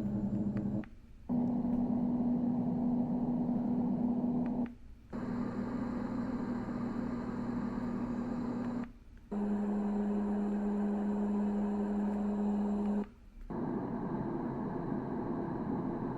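Dreamegg D1 white noise sound machine stepping through its sound settings: each plays as a steady noise with a low hum for about four seconds, then cuts out briefly before the next, different one starts, about four times.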